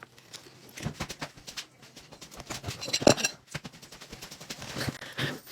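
Close-up crunching and chewing of food: a run of crisp crackles, with the loudest crunch about three seconds in.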